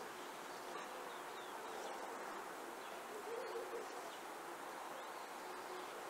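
Forest ambience: a steady insect-like hum, with a low, wavering hoot-like bird call about three and a half seconds in and a few faint high chirps.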